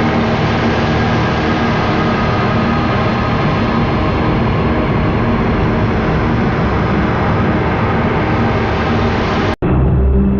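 Dark ambient sci-fi drone: a dense, steady, rumbling texture with many held tones. About nine and a half seconds in it cuts off with a click, and a duller drone with a few low held notes begins.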